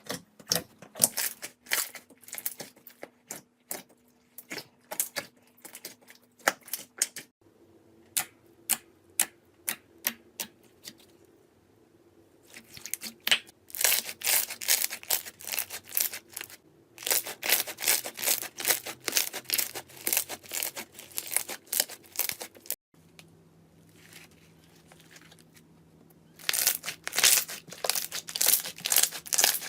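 Slime being squeezed, poked and stretched by hand: runs of sharp crackling clicks and pops, in several clips with quieter stretches between them.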